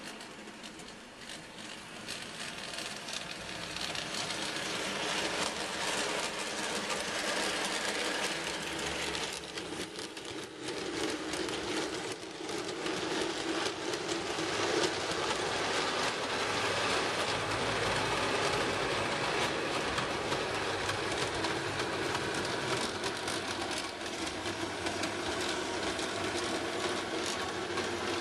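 Model Terrier tank locomotive hauling a rake of coal wagons along model railway track, its wheels rattling and clicking over the rails. It grows louder over the first few seconds as the train approaches, then runs on steadily.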